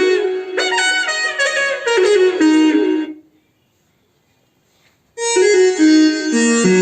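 Roland XPS-30 keyboard playing a short melody on a wind-instrument preset tone, which stops about three seconds in. After a pause of about two seconds, a new phrase starts on a different preset tone.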